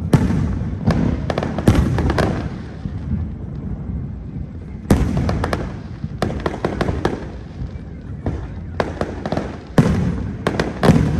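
Aerial fireworks bursting in volleys of sharp bangs, with clusters about a second in, around five, six to seven, and nine to eleven seconds in, and a low rumbling echo between them.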